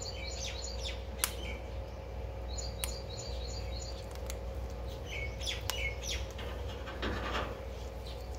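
Ringneck parakeet giving short runs of quick, high chirps, three bursts of a few notes each, with a couple of sharp clicks in between.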